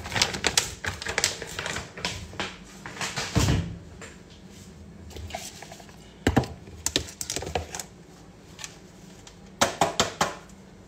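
A plastic protein-powder pouch crinkling as it is handled and folded, a dense run of small crackling clicks over the first few seconds. After a quieter stretch come a single knock, a few scattered taps, and another short cluster of clicks near the end.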